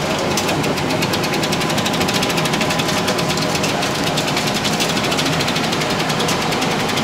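Cinemeccanica 70mm film projector starting up and running: its mechanism sets up a rapid, even clatter about a third of a second in.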